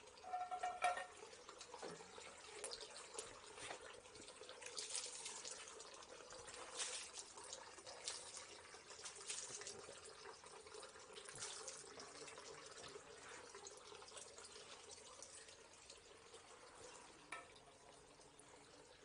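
Water trickling and splashing in small irregular spatters, with a brief pitched sound near the start that is the loudest moment.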